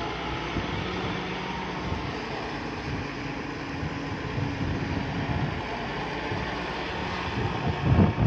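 Diesel engine of earthmoving machinery running steadily, with wind buffeting the microphone near the end.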